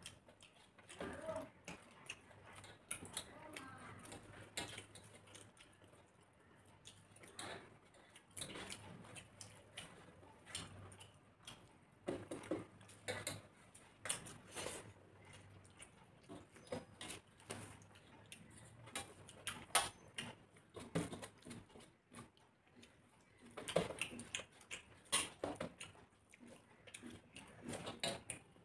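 Two people eating rice and curry by hand: irregular chewing and lip-smacking clicks, with fingers working food on metal plates.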